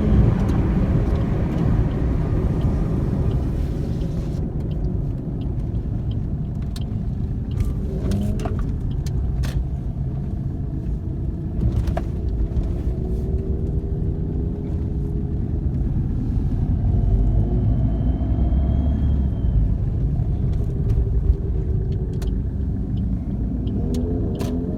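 Steady low rumble of a moving vehicle with road and wind noise, with faint engine notes rising and falling now and then.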